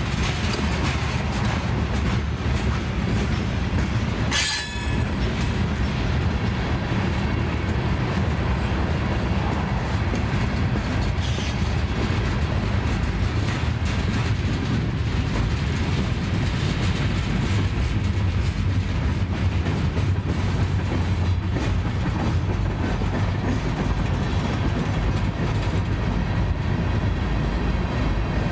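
Freight cars, covered hoppers and then tank cars, rolling past close by: a steady rumble and clatter of steel wheels on the rails. There is a brief sharp sound about four and a half seconds in.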